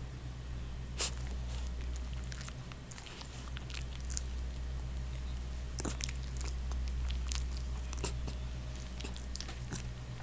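A dog making irregular wet mouth clicks and smacks, about eight of them, over a steady low hum that stops near the end.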